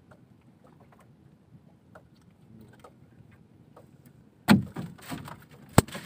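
Faint ticking, then from about two-thirds in a run of loud knocks and thumps on the boat, with one sharp crack near the end, as a caught fish is handled aboard.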